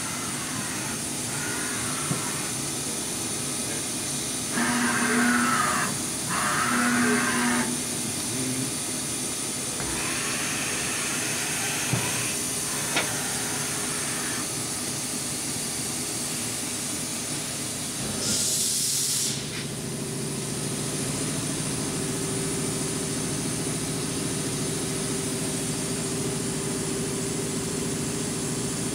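Kitamura Mycenter 2X vertical machining center moving its axes at rapid traverse: several servo-drive whines that rise in pitch and fall again as each move speeds up and slows down, the two loudest close together about five seconds in. A short burst of hiss comes about two-thirds of the way through, followed by a steady machine hum.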